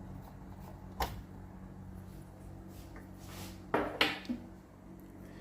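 Hands working at a tube tester: a sharp click about a second in, then three quick clicks and knocks near four seconds, over a steady low electrical hum.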